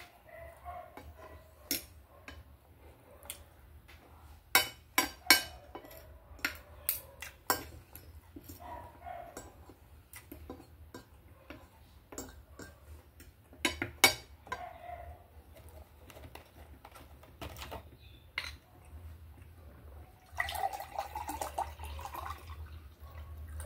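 Fork clinking and scraping on a plate as rice and lentils are scooped up, in many sharp clicks with some loud ones. Near the end, coconut water is poured from a carton into a glass for about three seconds.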